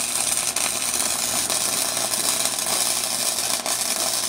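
Budget flux-core wire-feed welder's arc crackling steadily as a bead is laid on thin steel exhaust tubing, the welder turned up high.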